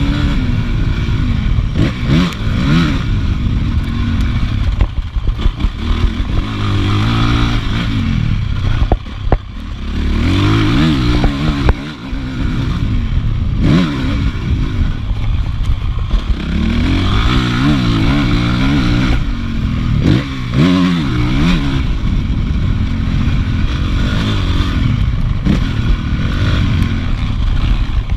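Honda CRF450 motocross bike's single-cylinder four-stroke engine revving up and falling off again and again under hard throttle, the revs rising and dropping every second or two. The engine note briefly drops out twice near the middle.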